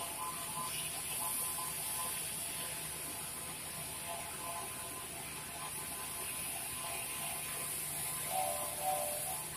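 Oxy-fuel cutting torch on a Koike IK-70 circle-cutting machine hissing steadily as it cuts through 50 mm steel plate. Faint steady tones sit underneath, with a couple of short tones near the end.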